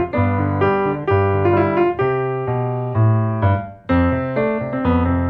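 Background piano music: slow chords struck about once a second, with a brief pause just before four seconds in.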